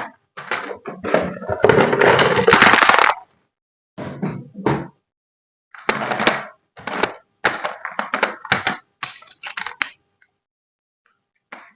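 Irregular knocks, clatter and crackling rustles of things being handled, in uneven bursts that die away about ten seconds in.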